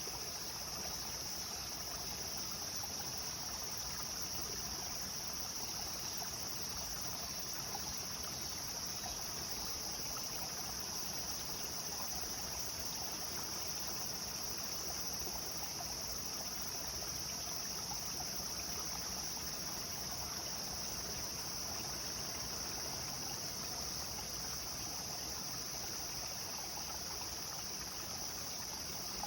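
River water flowing steadily, with a constant high insect drone over it.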